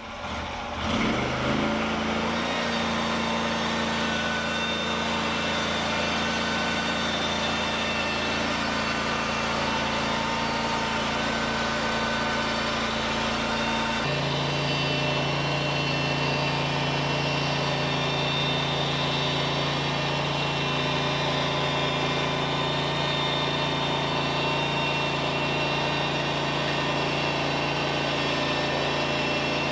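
The gas engine of a Norwood LumberMate LM29 portable bandsaw sawmill revs up at the start, then runs steadily. About halfway through its note drops and stays lower as the band blade runs through a log, sawing siding boards.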